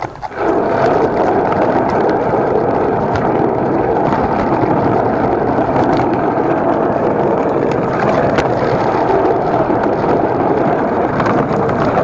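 Hand cart's small wheels rolling over a smooth concrete garage floor, a loud steady rolling noise that sets in just after the start, with an occasional light tick.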